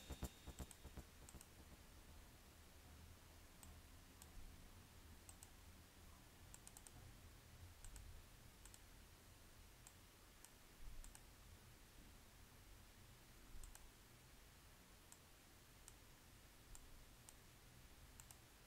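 Near silence with faint, scattered clicks of a computer mouse, a dozen or so spread irregularly over the stretch.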